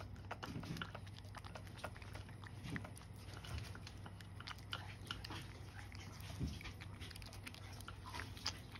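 Cat eating wet food from a ceramic dish: quiet, irregular licking and chewing clicks as it works through the food, with a faint low hum underneath.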